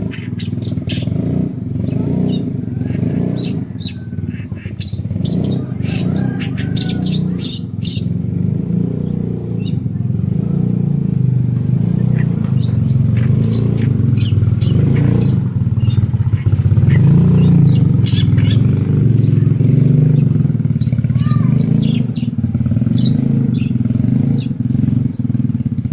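Oriental reed warbler singing short chirping phrases, busiest in the first eight seconds and sparser after. A loud, steady low rumble like a running engine lies under the song and is the loudest sound.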